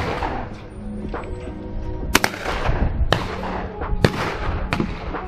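Beretta 694 over-and-under shotgun firing at clays, about four sharp shots each followed by a short echo, the last three about a second apart. Background music plays underneath.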